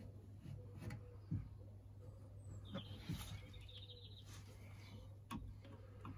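Faint knocks and taps from pipe clips and pipework being handled and fitted, over a steady low hum, with a brief high chirping squeak about three seconds in.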